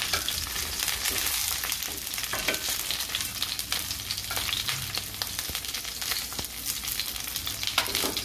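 Whole scored tinda (round gourds) sizzling in hot oil and ghee with cumin seeds in a stainless steel pan, with many small crackles, while a plastic slotted spatula stirs and turns them against the pan.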